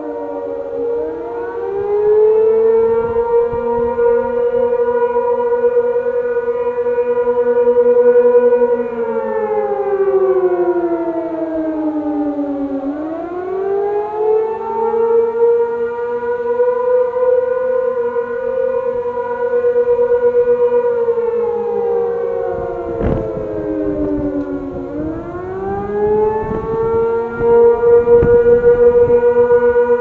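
Several outdoor warning sirens sounding together in their weekly test on the attack signal. Each cycle rises over about two seconds, holds for about six seconds and slides down over about four before rising again, three times in all. A single sharp knock cuts through about two-thirds of the way in.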